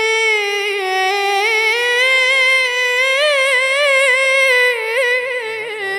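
A 12-year-old boy's voice chanting an Arabic devotional elegy with no accompaniment, holding one long, high note with wavering ornamental turns. Near the end a fainter, lower voice comes in underneath with short wavering sounds.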